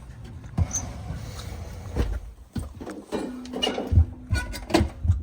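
Repeated knocks and rattles of a broken, loose door or panel being worked shut, with a steady squeak for a couple of seconds in the second half.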